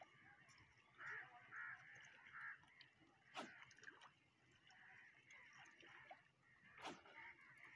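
Near silence: faint outdoor ambience, with a few faint short calls in the first couple of seconds and two brief soft noises about three and a half and seven seconds in.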